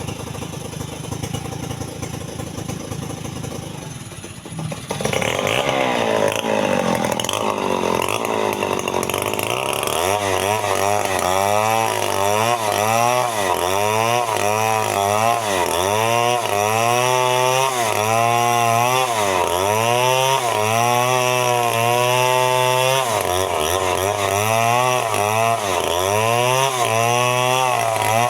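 Two-stroke chainsaw running at low revs, then opened up to full throttle about five seconds in. It then cuts into a tree trunk, its engine pitch repeatedly dropping under load and recovering every second or two.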